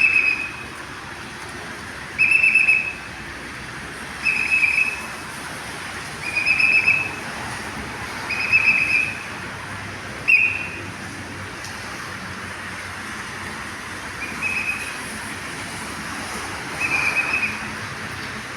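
A whistle blown in eight short, steady blasts about every two seconds, with a longer gap after the sixth; the last two blasts are fainter. A steady hiss runs underneath.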